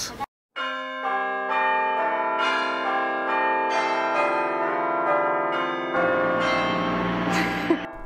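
Carillon bells playing a slow tune, a new note struck about every half second, each ringing on under the next. The bells stop just before the end.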